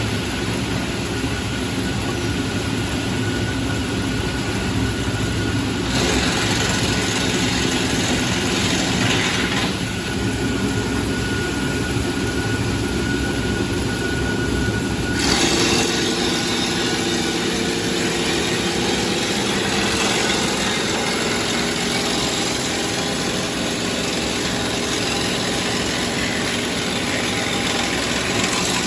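WEIMA Beaver 400 horizontal grinder shredding long wooden slats: a continuous machine drone under a dense grinding noise. The sound changes abruptly about six, nine and fifteen seconds in.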